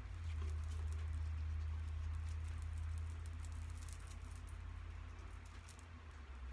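Faint rustling of hair and light plastic clicks as foam hair rollers are unclipped and pulled out of dreadlocks, over a steady low hum.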